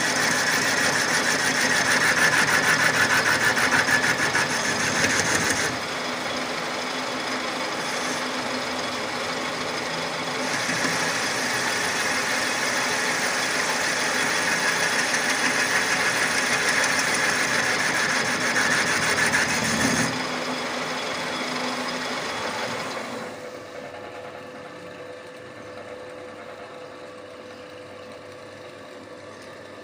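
Metal lathe running while a boring tool cuts the bore of a cast tractor leveling-box housing: a steady loud cutting and machine noise that shifts in tone a few times. About 23 seconds in the cutting ends and the level drops to a quieter steady hum.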